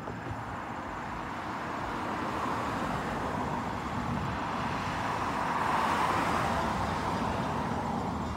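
A car driving past, its tyre and road noise swelling to a peak about six seconds in and then fading.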